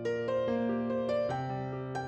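Background music: a soft piano-like keyboard playing a gentle run of single notes over a held low note.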